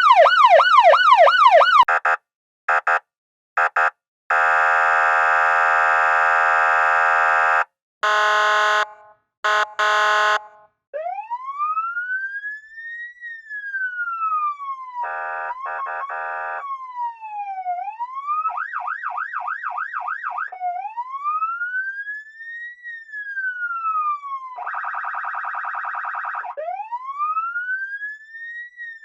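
Electronic police siren. It opens with a fast yelp, then sounds several short horn blasts and one long one, then settles into a slow wail rising and falling. The wail is broken by a brief burst of yelp and two blasts of the horn.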